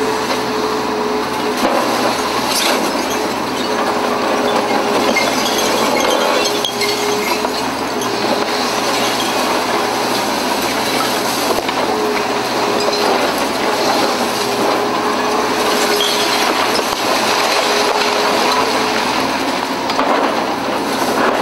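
Long-reach demolition excavator tearing down a concrete block of flats: continuous machine noise with a steady whine that breaks off and returns every few seconds, over the crunching and clinking of breaking concrete and falling debris.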